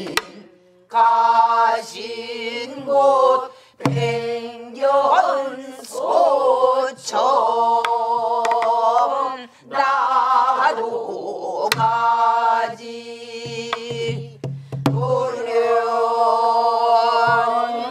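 A group of pansori singers singing a slow lament together, holding long, wavering notes between short breaks. A few sharp strokes on buk barrel drums mark the rhythm.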